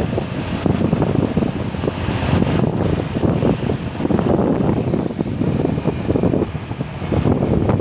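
Wind buffeting the microphone with a steady, dense rumble, over road and vehicle noise.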